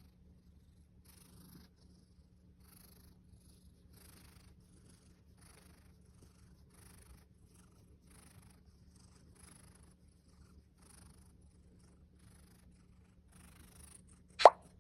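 A cat purring steadily, swelling in a slow rhythm about every second and a half. A brief, loud, sharp sound cuts in once near the end.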